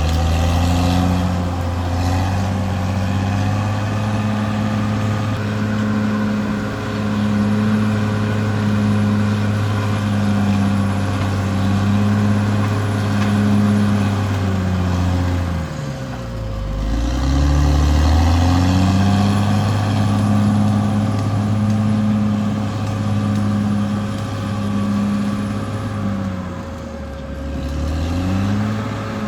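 Caterpillar D6R XL bulldozer's diesel engine running hard, with a steady whine over it. About halfway through and again near the end, its pitch dips sharply and climbs back.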